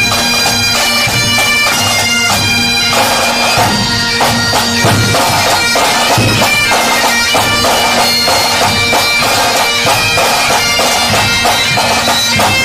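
Bagpipes playing a tune over a steady drone, with drums beating along.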